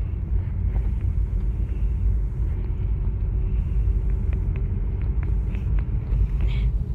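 Low, steady road and engine rumble inside a moving car, picked up by a phone's microphone, with a few faint clicks in the second half.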